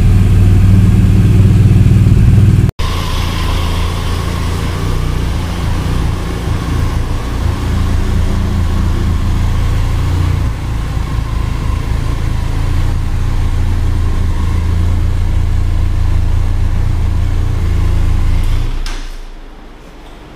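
BMW R1200 GS boxer-twin engine running loud, then after an abrupt cut a Benelli TRK 502 parallel-twin engine idling steadily, which stops near the end.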